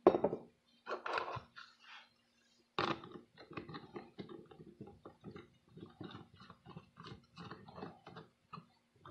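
Plastic trigger spray bottle being handled. There are a few knocks, then a quick run of small plastic clicks and rasps, about three or four a second, as its trigger head is worked.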